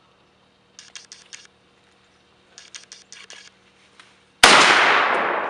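A few short clusters of faint clicks, then near the end a single SKS rifle shot, loud, its report dying away in a long echo.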